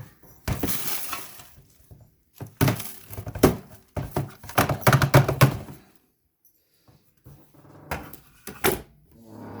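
Hard objects knocking and clattering as they are handled, in several bursts: a rustle about half a second in, a run of sharp knocks and rattles in the middle, and a few more knocks near the end.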